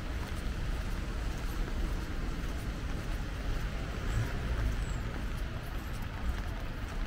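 Steady heavy rain falling on a city street, with a low rumble beneath it that swells briefly about four seconds in.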